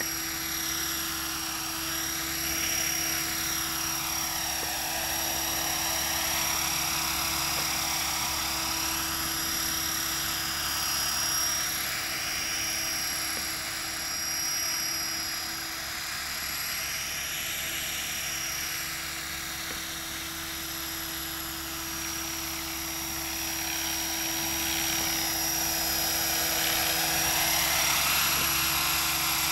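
Align T-Rex 500 electric radio-controlled helicopter hovering and manoeuvring low: a steady high whine from the electric motor and gears with the whir of the rotor blades, its tone wavering in slow sweeps as the helicopter moves about, a little louder near the end as it comes closer.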